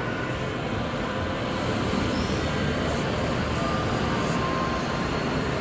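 Steady mechanical rumble with a hiss, such as shop machinery or ventilation running.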